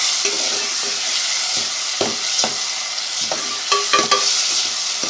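Tomatoes, onions and ginger-garlic paste frying in ghee in a metal pot with a steady sizzle, while a metal spoon stirs the masala and scrapes and clinks against the pot at irregular intervals.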